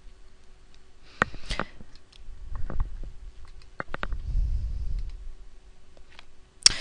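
Computer mouse clicking: about half a dozen sharp, irregular clicks between one and four seconds in, over a low rumble and a faint steady hum.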